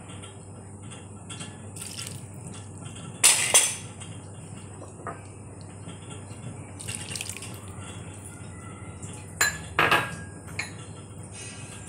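Sharp clinks against a stainless steel mixing bowl, a loud one about three seconds in and a quick pair near ten seconds, with quieter handling and pouring sounds between as dark sauce is added to chopped herbs.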